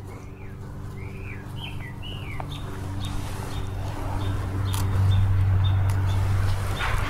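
Small birds chirping in short rising-and-falling calls for the first couple of seconds, then a high tick repeating about twice a second. Underneath is a steady low hum that grows louder in the second half. A couple of sharp clicks of hand pruners snipping tomato stems come near the end.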